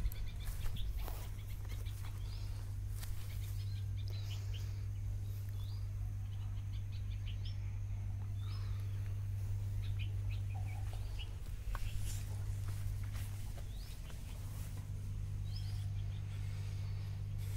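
Small birds chirping on and off over a steady low hum, with a few brief knocks near the start and about twelve seconds in.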